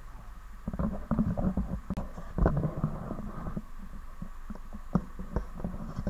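Irregular knocks, thumps and footsteps over a steady low rumble, from people moving about and settling into the cabin of a small passenger pump boat.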